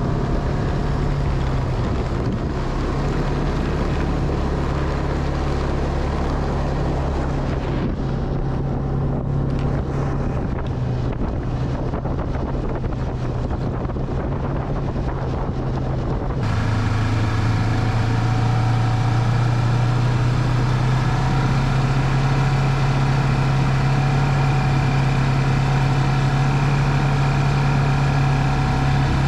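Snowmobile engine running steadily while riding along a trail, with wind noise on the microphone. About halfway through the sound shifts abruptly and the engine hum becomes louder and clearer.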